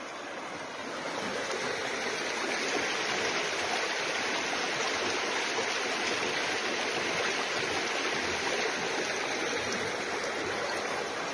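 Swollen, fast-flowing creek rushing past: a steady wash of running water, growing a little louder in the first couple of seconds.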